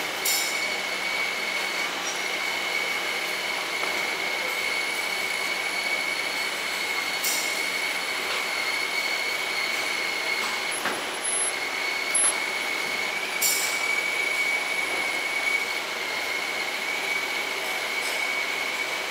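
Benchtop metal lathe turning a workpiece, the tool cutting and peeling off long stringy chips: a steady whir of spindle and cut with a high, steady whine over it, and a few brief clicks.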